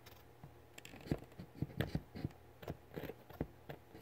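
Faint handling noise: a dozen or so light, irregular clicks and taps, with no drill running.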